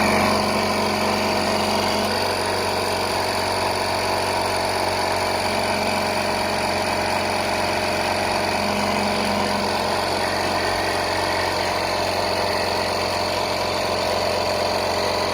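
JETHAX 12V portable tire inflator's electric compressor switching on abruptly and running steadily, pumping a tire up toward its 30 PSI auto shut-off setting.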